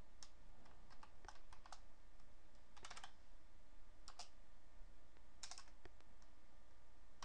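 Computer keyboard keys clicking in a few short, sparse runs of keystrokes, over a faint steady low hum.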